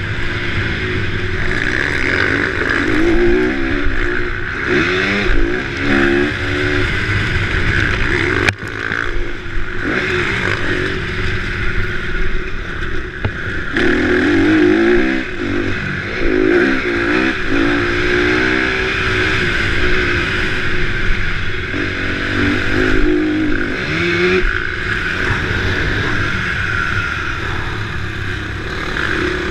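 Motocross dirt-bike engine revving up and down again and again as the bike is ridden hard around a dirt track, heard up close from an onboard camera. There is a single sharp knock about eight seconds in.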